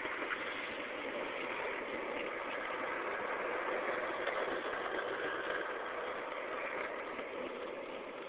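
Steady rolling roar of wheels on asphalt at downhill speed, mixed with wind rush.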